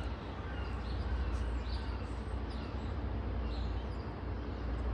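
Several short bird chirps over a steady low rumble from an MBTA commuter train approaching in the distance.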